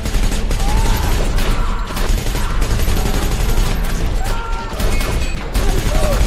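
Rapid, sustained gunfire, shot after shot, from a film shootout, over action film music.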